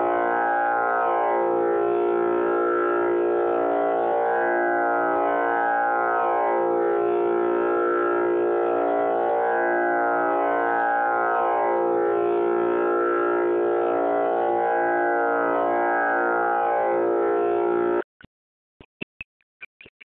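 Tanpura drone tuned to A#: a steady, loud drone whose overtones swell and fade in a slow repeating cycle. It stops abruptly about 18 seconds in, followed by a few faint clicks and knocks.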